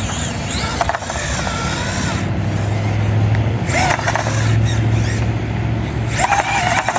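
Small electric motor and gear train of an Axial SCX24 micro RC crawler (a Ford Bronco) whirring steadily as it works over rocks, its hum growing stronger about halfway through.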